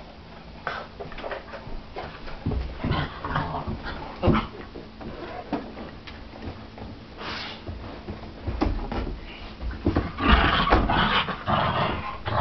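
Dogs fighting, two pit bulls on a small blind dachshund: irregular thumps and scuffling with short dog cries, heaviest in the last couple of seconds.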